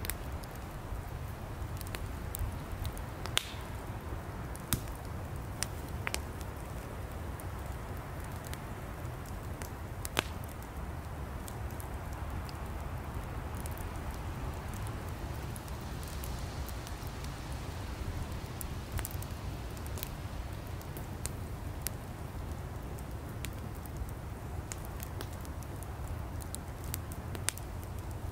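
Wood fire burning: a steady low rush of flames with scattered sharp crackles and pops from the burning firewood.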